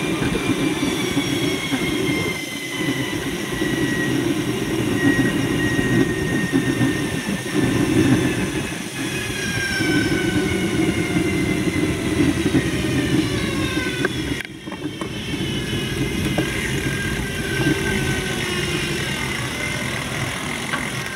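A vehicle running with a steady low rumble, and several high whines that slowly fall in pitch over many seconds.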